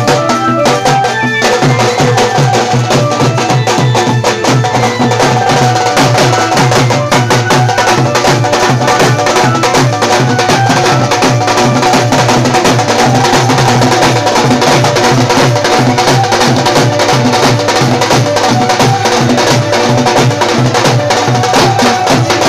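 A steel-shelled dhol and a large bass drum played together in a fast, steady drumming rhythm, with a held melodic line running over the beat.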